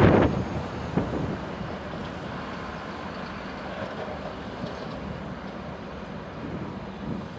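Wind buffeting the microphone at the start, then a steady low rumble of background noise, with a single sharp tick about a second in.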